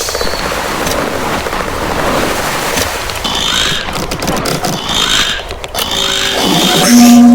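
Door sounds played back sped up: a fast rattling clatter with short squeaky chirps. A steady humming tone begins near the end.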